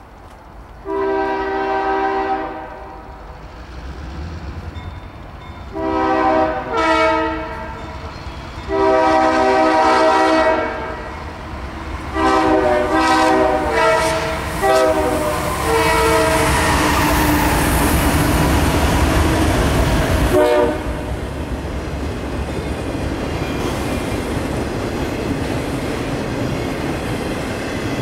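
Two locomotive air horns, a three-chime Leslie RS-3L and a five-chime Nathan K5HL, sound crossing blasts in turn as multi-note chords, some long and some broken, over the first 16 seconds or so. After that a train passes close by with a loud, steady rumble of wheels and engine, which drops somewhat about 20 seconds in.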